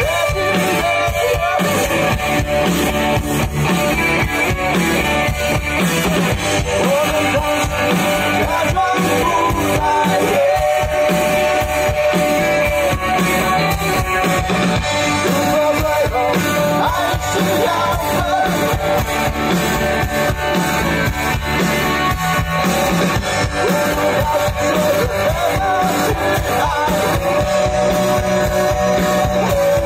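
A rock band playing live: electric guitars, acoustic guitar, electric bass and drum kit in an instrumental passage, guitar lines over a steady beat.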